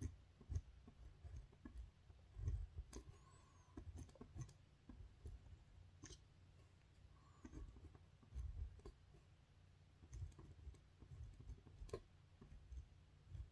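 Pen writing on paper: faint, irregular taps and short scratches as each stroke is drawn, with soft low thuds of the hand and pen against the paper and desk.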